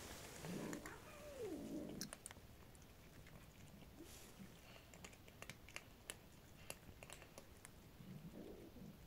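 A cat gives a drawn-out call that falls in pitch about half a second in, and a shorter call near the end, over faint small clicks of cats crunching dry kibble.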